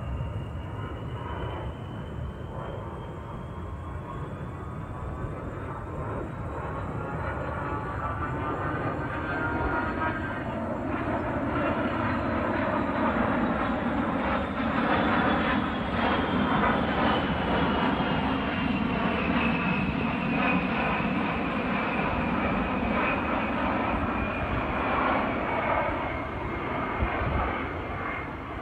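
Two A-10 Thunderbolt II (Warthog) jets flying past, their twin TF34 turbofan engines giving a high whine over a steady rumble. The whine rises in pitch as the jets approach, then falls from about twelve seconds in as they pass, while the rumble grows louder through the second half.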